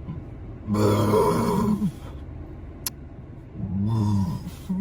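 A person belching twice, two long, low burps of about a second each, the first just under a second in and the second near four seconds in; a third begins at the very end.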